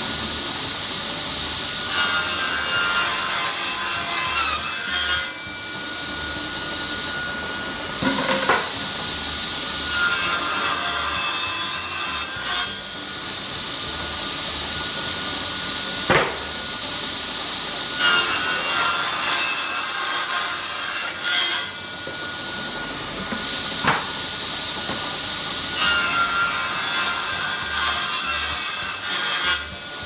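Table saw running steadily and cutting through wood four times, each cut about three seconds long and about eight seconds apart, with a sharp knock between cuts.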